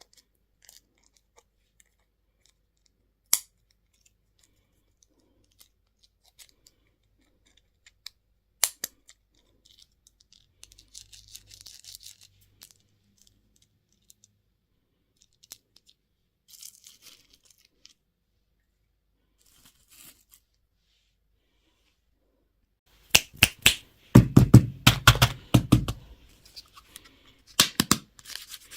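Plastic candy packaging being opened by hand: a few isolated sharp clicks, soft rustling, then a loud run of crinkling and tearing in the last few seconds.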